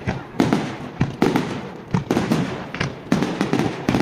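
Fireworks bursting overhead: a rapid, uneven run of loud bangs, about eight in four seconds, each one dying away before the next.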